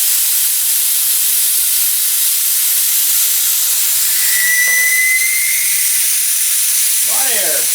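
Air hissing loudly and steadily out of a tractor's front tire as it is let down through the valve stem, with a brief thin whistle about four seconds in.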